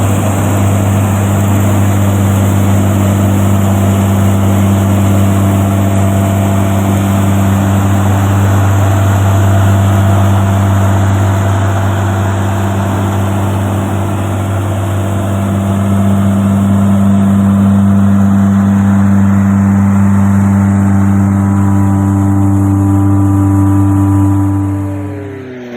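Engine of wheat-harvesting machinery running steadily at constant speed with a deep, even hum. Near the end it cuts off suddenly, leaving a quieter engine whose pitch falls.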